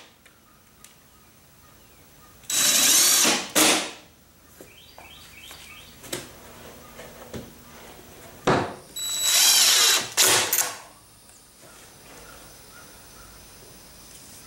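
A cordless drill driving hinge screws in two short runs, each about a second long, each followed by a quick second squeeze of the trigger. A few light knocks come between the runs.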